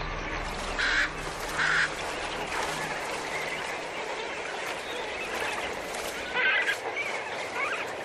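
A large flock of flamingos calling with a goose-like honking over a dense background of flock noise. A few louder single calls stand out about a second in, just before two seconds, and at six and a half seconds.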